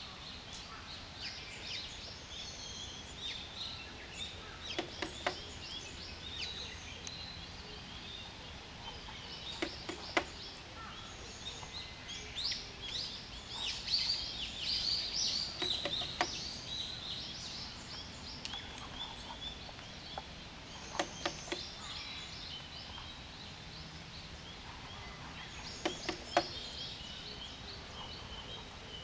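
Small birds chirping and calling outdoors, busiest about halfway through, with sharp taps heard every five seconds or so, often in pairs.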